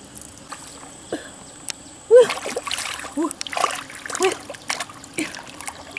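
Hands splashing and scooping through shallow muddy water, groping for fish. There are a few faint ticks at first, and the splashing picks up about two seconds in, with short bubbling plops.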